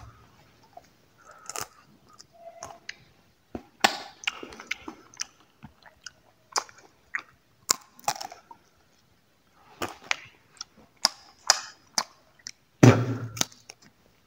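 Close-miked chewing of crunchy dry fruit: irregular sharp cracks and crunches. Near the end there is one loud, low, muffled burst.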